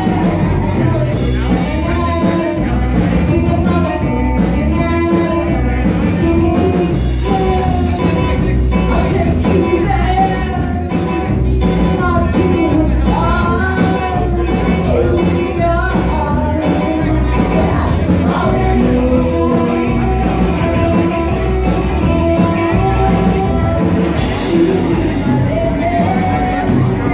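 Live rock band playing: a woman singing lead over two electric guitars and a drum kit.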